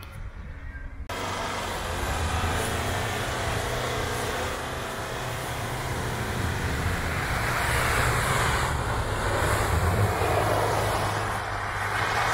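Pickup truck engine pulling steadily through deep snow, under a rushing hiss of snow thrown up by the tyres. The sound jumps louder about a second in, and the hiss swells in the second half.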